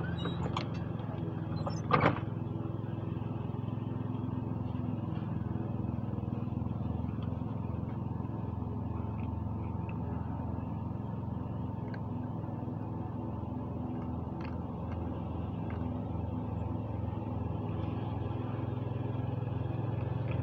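A small engine running steadily at an even pitch, with one sharp knock about two seconds in.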